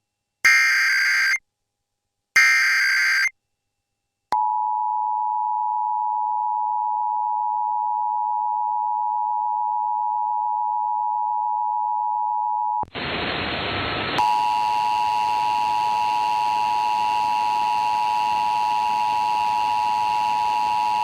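Emergency Alert System broadcast: two short screeching bursts of the digital SAME header, then the two-tone EAS attention signal (853 and 960 Hz sounded together), held steady for about eight seconds. About thirteen seconds in, a hiss comes up, and the attention signal starts again in a noisier recording with a faint higher tone added, running on to the end.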